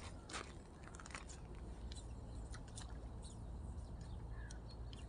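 Fishing reel being cranked during a lure retrieve, giving scattered light clicks and ticks over a steady low wind rumble.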